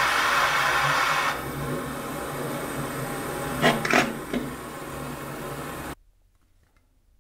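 Butane gas torch running with a steady hiss, which drops in level about a second in. A few short sharp clicks come between three and a half and four seconds in, as the heated drill bit is pushed into the plastic bottle. The sound cuts off suddenly about six seconds in.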